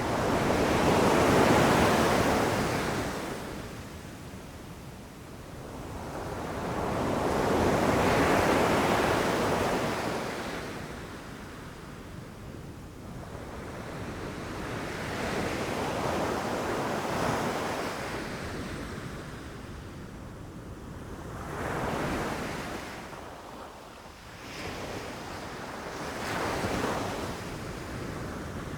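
Ocean waves rushing onto the shore, the surf noise swelling and falling away in surges about every six seconds, the first two the loudest.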